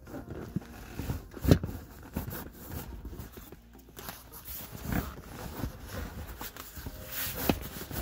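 Hands working at leather car-seat trim to tuck wiring under it: irregular rustles, creaks and knocks, the loudest a thump about a second and a half in.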